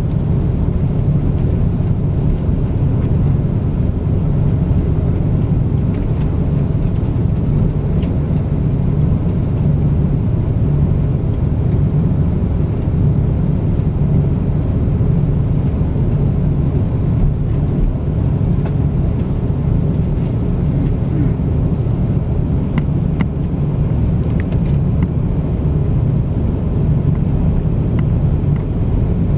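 Steady low rumble inside the cabin of an Airbus A330-343 airliner taxiing, its engines running at low power, with a few faint ticks.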